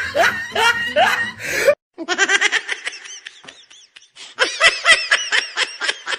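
A person laughing in rapid repeated bursts, cut off abruptly just under two seconds in, followed by another run of rhythmic laughter that fades and then picks up again near the end.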